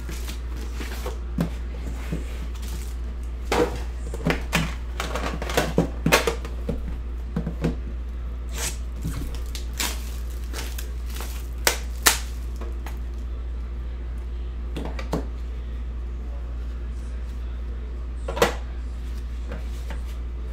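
Cardboard box and metal tin of a hockey card box being handled and unpacked on a table: scattered clicks, taps and knocks, thickest over the first half, with two sharp ones around the middle and one near the end, over a steady low hum.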